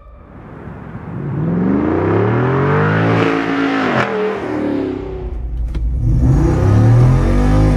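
The 6.4-litre Hemi V8 of a Jeep Wrangler Rubicon 392 accelerating hard in a drive-by: the engine note climbs, then falls away as it passes. After a cut, it is heard from inside the cabin accelerating again with the note rising.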